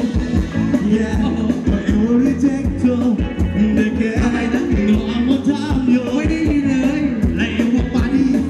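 Live Thai ramwong band playing an upbeat dance song with a steady drumbeat and a voice singing.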